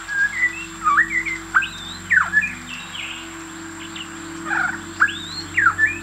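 White-rumped shama singing short, broken phrases of rich whistled notes that swoop up and down. The notes come in two bursts with a pause of about two seconds between them: a halting attempt at song rather than a full, flowing one.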